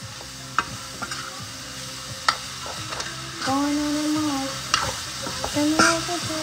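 Mixed vegetables sizzling in a hot pan as a spoon stirs them, with a few sharp clicks of the spoon against the pan. From about halfway through, a few pitched notes sound over the sizzle.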